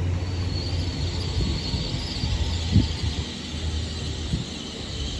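LNER Hitachi Azuma (Class 800/801) train running at the platform: a steady low hum with a high whine that sets in just after the start and drifts slightly lower near the end, and a brief low thump about halfway through.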